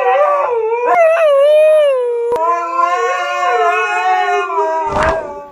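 Two Siberian huskies howling together in long, wavering howls, their voices overlapping at different pitches. The howling stops about five seconds in, followed by a short noisy burst.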